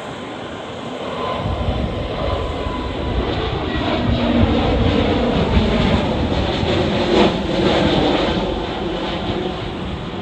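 Jet engine noise from a Lufthansa Airbus A320-family airliner climbing out at takeoff thrust just after liftoff. It builds as the jet passes overhead, peaks about halfway through, then eases slightly as it climbs away.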